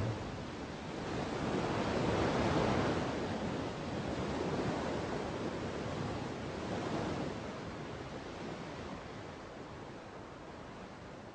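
A rushing, surf-like noise that swells and ebbs in slow surges a few seconds apart, then fades away near the end.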